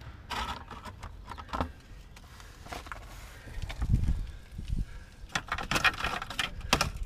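Light clicks of hand work on small screws under a car, then a run of rattling and crinkling as a thin aluminum exhaust heat baffle is pulled at and worked loose; a dull bump about four seconds in.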